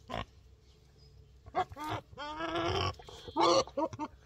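Goat bleating several times, with one long wavering call about two seconds in and a shorter, louder one near the end.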